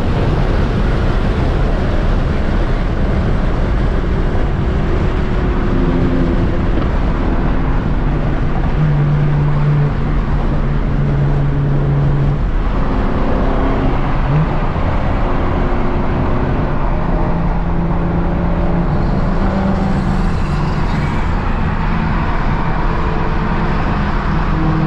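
Car driving at a steady pace: engine and road noise, a continuous rumble with a few held tones that step to new pitches now and then.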